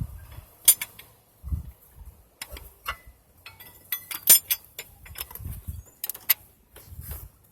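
A 7/8 in steel box wrench clinking and tapping against metal as it is worked down around a transmission oil pressure switch: irregular sharp metallic clicks, with a few dull thuds.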